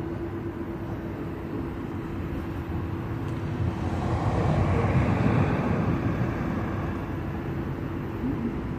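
Street traffic noise: a steady low rumble, with a passing vehicle swelling louder about four to six seconds in and then fading.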